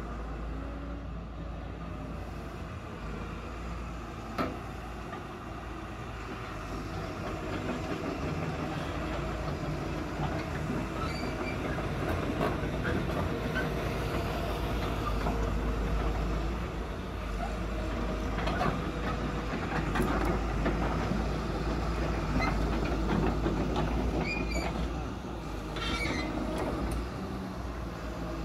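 CAT 320D2 crawler excavator's diesel engine running while the machine travels on its steel tracks, with the track links clanking and knocking. It grows louder about seven seconds in, with a single sharp knock shortly before.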